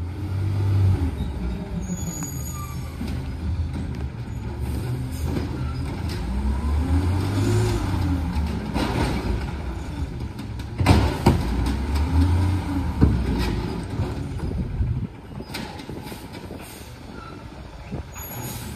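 Natural-gas engine of a 2011 Peterbilt 320 automated side-loader garbage truck revving hard several times, pitch rising and falling with each surge as the lift arm works, with a few sharp knocks from the cart being handled. About fifteen seconds in the revving stops and the engine settles to a lower, quieter run.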